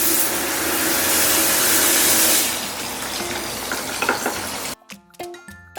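Appliance steam-cleaning machine spraying from its nozzle in cold-water mode: a loud steady hiss that drops in level about two and a half seconds in and cuts off abruptly near the end, followed by background music.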